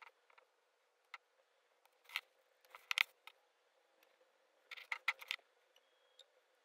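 Light, sharp taps and clicks from a fingertip tapping an iPhone's touchscreen and the phone being handled on a desk. There are a few single taps, the loudest about three seconds in, and a quick cluster around five seconds in as the phone is picked up.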